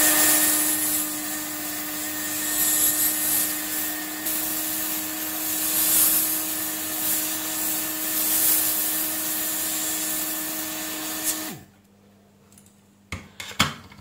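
Hot air rework gun blowing at 550 °C onto a micro USB charging port's solder joints to free the port: a steady rushing hiss with a fan hum, which stops suddenly near the end. A few light clicks follow.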